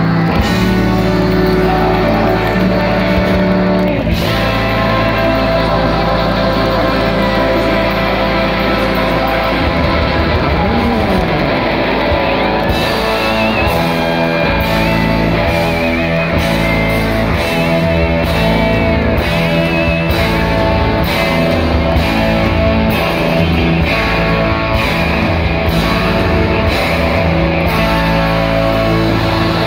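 Live blues-rock band playing an instrumental: electric guitars over bass guitar and drums, loud. From about thirteen seconds in, a steady beat of cymbal strokes runs under the guitar lines.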